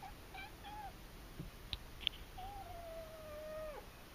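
Black-and-white kitten meowing: a few short mews, then one long meow that sinks slightly in pitch and drops away at the end. Two sharp clicks come between them.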